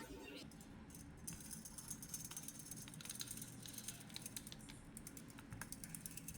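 Faint, irregular light clicks and taps throughout.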